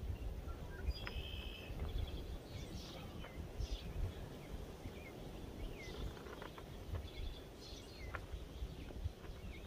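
Birds chirping and calling here and there, with one short held whistle about a second in, over an uneven low rumble.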